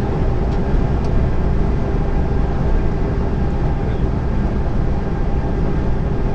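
Steady drone of a heavy lorry's diesel engine and road noise, heard inside the cab while cruising at motorway speed.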